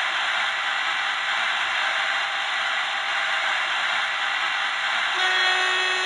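Sound decoder of an H0-scale model Renfe 269 electric locomotive playing its locomotive sounds through the model's small speaker: a steady rushing noise, then a horn sounding a little over five seconds in and held to the end.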